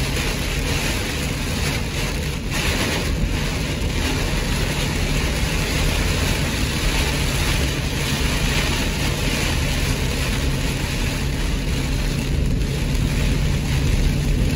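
Heavy rain on a car's windshield and roof, heard from inside the moving car, over a steady low hum of the engine and tyres on a wet road.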